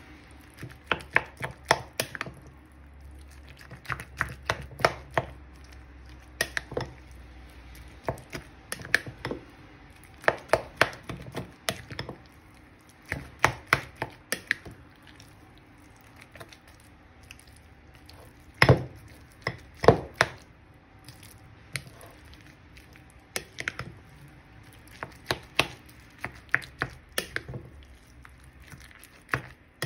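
A spoon mixing minced beef and prawn filling in a bowl: bursts of quick clicks and taps as the spoon knocks against the bowl, with two louder knocks about two-thirds of the way through.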